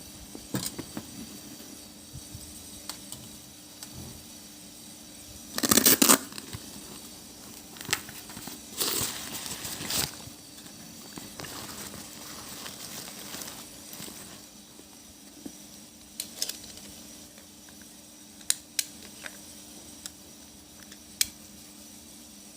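Packaging being handled during an unboxing: plastic and paper crinkling in two loud bursts, about six and nine seconds in, among scattered clicks and taps.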